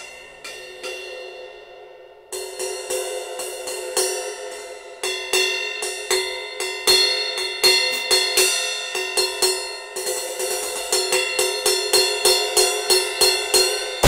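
Meinl BCS brass cymbal struck repeatedly with a wooden drumstick, ringing on between hits. A few scattered hits at first, then steady strikes from about five seconds in that speed up to about three a second, with a loud crash right at the end.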